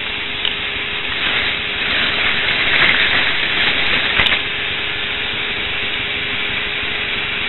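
Battery-powered motor of a K'nex roller coaster's chain lift running with a steady hum, under heavy hiss. The plastic cars run along the track; the noise swells between about two and four seconds in and ends with a sharp click.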